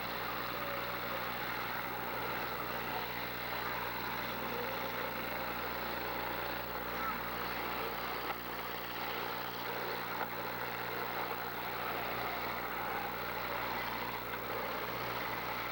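Demolition derby cars' engines running together as a steady, continuous din over a low electrical hum, with one short knock a little past eight seconds in.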